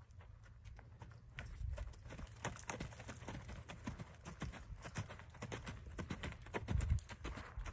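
Hoofbeats of a ridden horse on sand footing. They quicken a couple of seconds in as the horse moves up from a walk into a faster gait.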